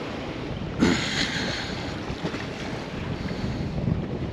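Wind buffeting the microphone over water noise on a boat, with a sudden louder rush about a second in.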